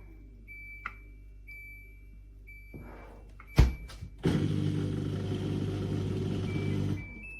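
Countertop dishwasher running: a low hum with a short high beep about once a second, a knock about halfway through, then a loud rushing run of its motor and water for about three seconds that stops near the end.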